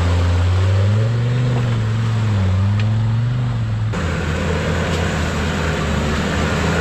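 Land Rover Discovery engine working at low speed through deep mud, its note rising and falling as the throttle is fed in and eased off. About four seconds in the sound changes abruptly to a second, steadier engine note.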